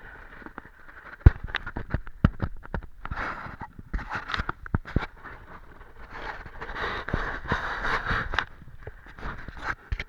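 Irregular scraping with many sharp knocks and clicks, stretches of rough scraping strongest in the middle and later part: handling and scraping sounds of hard objects.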